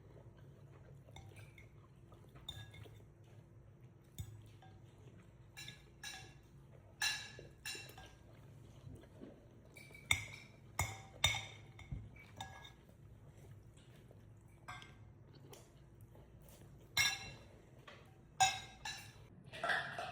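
Cutlery clinking and tapping against plates during a meal, irregular single clinks with a short ring, bunching into quicker runs about halfway through and near the end, over a faint steady low hum.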